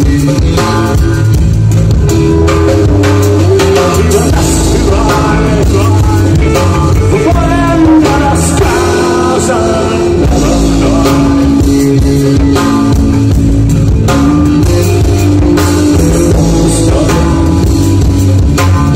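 Rock band playing live and loud: electric guitar, bass guitar and drum kit, with a man singing.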